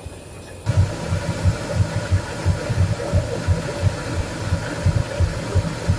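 Diesel locomotive engine idling close by, a low, uneven throbbing of about four pulses a second over a faint hum, starting abruptly just under a second in.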